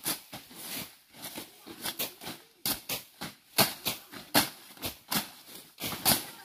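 Machete slashing through grass and weeds: a quick, irregular series of short swishing cuts, about two a second, with the rustle of cut leaves and stems.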